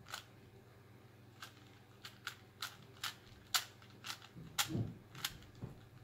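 A Rubik's Cube being twisted by hand: a string of about ten sharp plastic clicks at uneven intervals as its layers snap round, with a dull low rustle of the hands about three-quarters of the way through.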